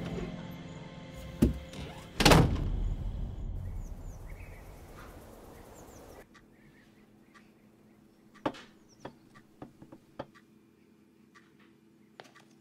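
A loud heavy thud a little over two seconds in, after a lighter knock a second earlier, its echo dying away over the next few seconds. Then quiet room tone with a few scattered light taps and clicks.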